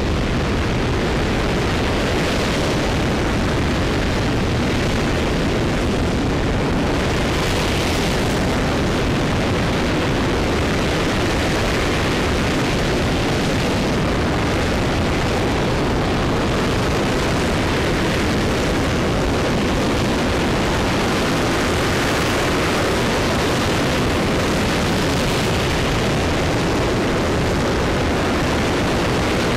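RS-25 liquid-hydrogen rocket engine firing steadily in a hot-fire test: a loud, continuous rushing roar that holds an even level throughout.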